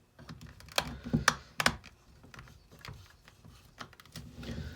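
Irregular clicks and light knocks of small parts and a tool being worked inside an old Black & Decker drill, trying to free a part stuck fast with old gunk. A few sharper strikes come in the first couple of seconds.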